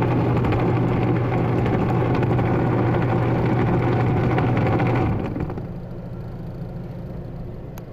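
A twin-tub washing machine's wash motor and spin-dryer motor running together: a steady electric hum under a loud rattling grind, which the repairman puts down to a worn gearbox that needs replacing. About five seconds in, the sound drops to a quieter, steadier hum.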